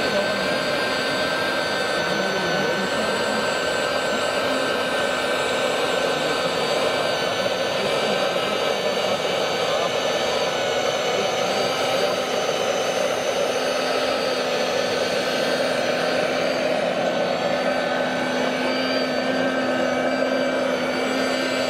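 Suction fan of a 1/16-scale RC Iveco vacuum road sweeper running: a steady whirring whine with a high, unchanging tone. A lower steady hum joins about halfway through.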